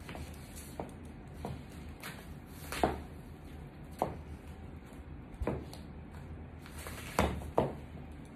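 Stiletto-heeled boots stepping on a tiled floor and crushing apple pieces underfoot: a series of irregular sharp knocks and crunches, the loudest about three seconds in and two close together near the end.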